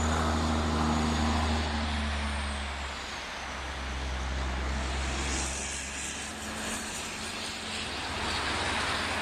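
A distant engine droning steadily with a low hum that dips a little about three seconds in and then comes back.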